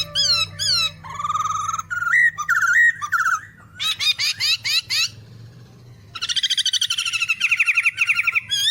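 Songbird singing in quick varied phrases of repeated chirps and trills, with a brief lull about five seconds in, then a long fast trill that slowly falls in pitch near the end.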